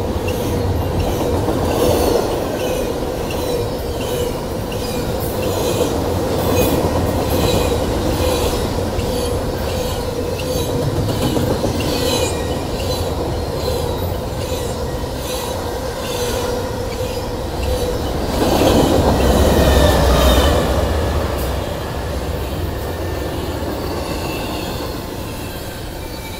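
Double-stack container freight train rolling past at close range: a continuous rumble of wheels on rail with a steady tone and regular rhythmic clicks as the wheelsets pass. It swells louder for a couple of seconds about two-thirds of the way through.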